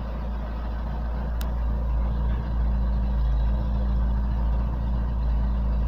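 Car engine idling with a steady low hum, which the owner puts down to the exhaust pipe.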